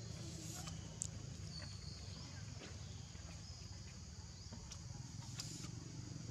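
Outdoor forest ambience: a steady high drone and a low rumble, with a few short chirps and a sharp click about a second in.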